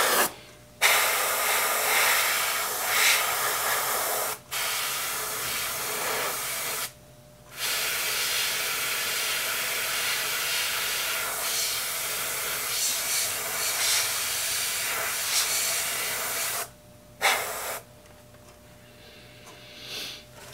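Airbrush spraying paint: a steady hiss of air and paint, broken off briefly a few times as the trigger is let go, with a last short burst before it stops near the end.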